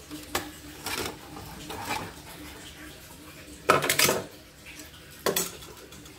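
Metal clicks and clinks as a screwdriver works the steel needle plate off an Elna portable embroidery machine. A louder clatter of knocks comes just under four seconds in as the plate is set down on a wooden surface, and another sharp knock follows about a second later.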